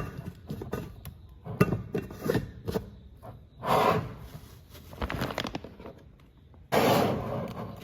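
Intermittent knocks, scrapes and rustles of things being handled, with two longer rustling bursts, one about halfway through and one near the end.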